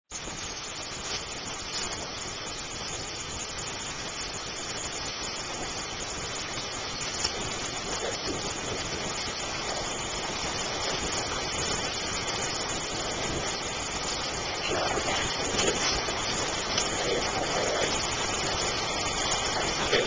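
Stream water rushing steadily, slowly growing louder.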